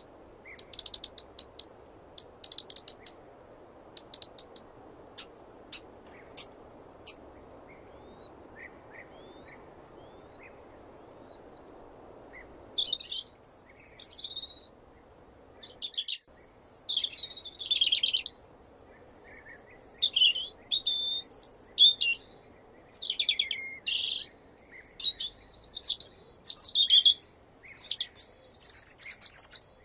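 European robin singing: high, thin whistled notes and short rapid trills for the first part, then from about halfway a run of fast, varied warbling phrases with short pauses between them.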